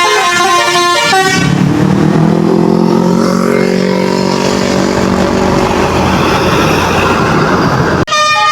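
Bus Basuri telolet musical horn playing its multi-note tune, breaking off just over a second in. A lower steady drone with a noisy rush follows, the bus's engine running. Near the end the horn tune starts again.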